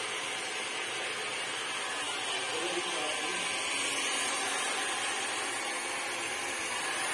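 Handheld electric hair dryer running steadily, a constant blowing rush of air.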